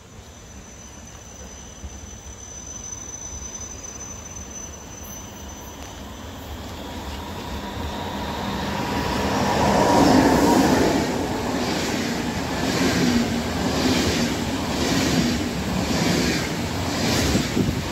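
A double-deck passenger train approaching and running through at speed. Its sound builds steadily over about ten seconds, with a thin whine from the rails as it nears. The coaches then rush past with a regular clack of wheels over the rail joints, a little more than once a second.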